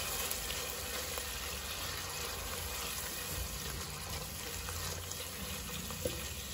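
Prawns sizzling and simmering in a thin spiced liquid in a nonstick pan while a silicone spatula stirs them, over a steady low hum. A single soft knock comes about six seconds in.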